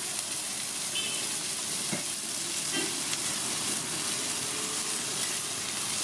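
Sliced onions sizzling in oil on a large flat griddle, with a metal spatula stirring and turning them now and then.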